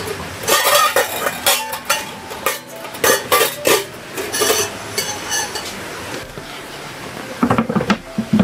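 Metal cookware and utensils clattering and clinking as cooking gear is handled, in quick irregular knocks, some with a short metallic ring. It thins out for a couple of seconds, then a few louder clanks come near the end.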